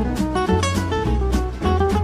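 Music with plucked guitar over a bass line and a steady beat.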